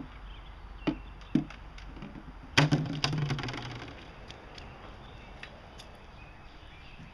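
Empty plastic jugs knocking and dropping onto a concrete driveway: two light knocks about a second in, then a louder hollow clatter about two and a half seconds in that dies away over a second or so.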